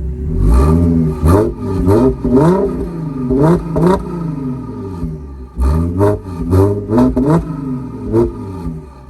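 2010 Audi S4's supercharged 3.0-litre V6 through an AWE Touring cat-back exhaust, revved from idle in quick blips: about ten sharp rises and falls in two bursts, with a short drop back toward idle about five seconds in. In park the revs are capped by a 4,000 rpm limiter.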